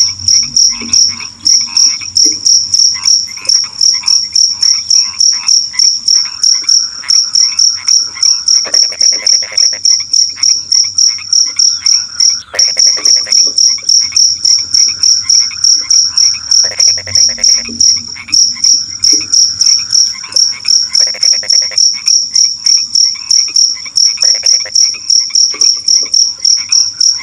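A cricket chirping loudly and without pause, a steady high-pitched pulse of about four chirps a second, over a chorus of frogs croaking in short rattling bouts underneath.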